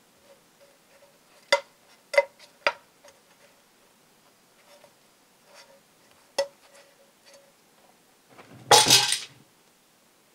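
Kitchen utensils clinking against dishes in a few sharp separate clinks, then a louder clatter lasting about a second near the end.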